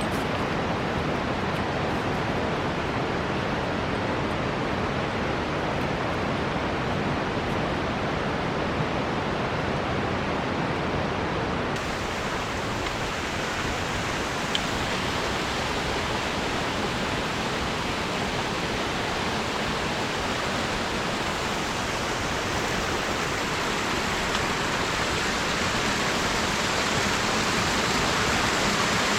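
Alpine river rushing steadily, a constant even wash of flowing water that turns a little brighter about twelve seconds in.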